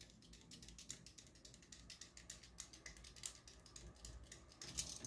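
Quick, irregular light clicks of a craft knife tip tapping on the film-covered canvas of a diamond painting kit. The knife is pricking the air bubbles trapped between the canvas and its glue so that they flatten out.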